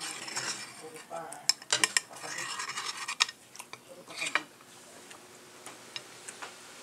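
Metal spoon and fork scraping and clinking against a ceramic plate of rice. Several sharp clinks fall between about one and a half and four and a half seconds in.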